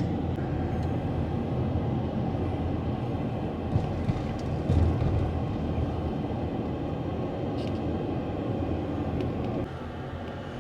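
Car driving, heard from inside: a steady rumble of engine and road noise, with a couple of brief knocks about four to five seconds in, and the noise dropping slightly near the end.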